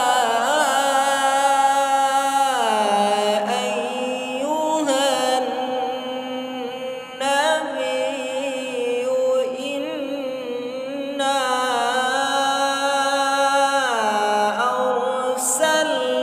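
Solo male voice reciting the Quran in the melodic tilawah style, holding long ornamented notes with short breaks between phrases.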